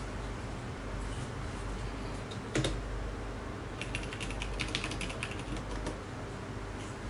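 Computer keyboard being typed on: a quick run of about a dozen keystrokes over two seconds as a password is entered at the Windows sign-in screen, after one louder single click about two and a half seconds in. A steady hiss lies underneath.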